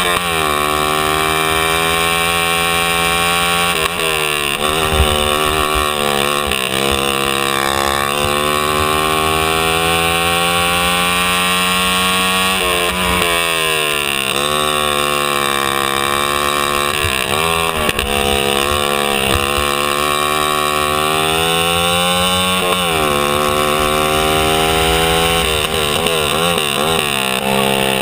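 Racing kart's engine at racing speed, heard close from on board. Its pitch climbs slowly along each straight and drops sharply as the driver lifts off for each corner, several times over.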